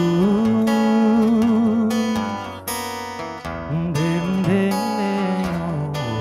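Acoustic guitar strumming a live song accompaniment under a held melody line that wavers and bends in pitch, with a brief drop in loudness near the middle.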